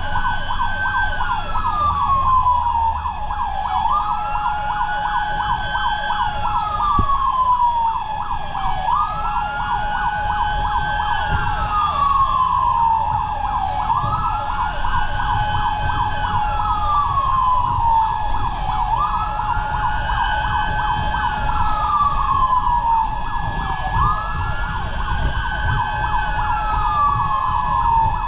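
Fire truck siren on wail: each cycle is a quick rise in pitch followed by a slow falling glide, repeating about every five seconds. Beneath it are a steady, rapidly pulsing tone and the low rumble of the truck running.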